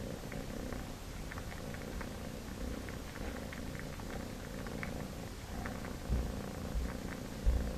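A cat purring steadily while sucking on a rug as if nursing, with many small clicking suckling sounds over the purr. A few dull thumps come near the end, the loudest just before it ends.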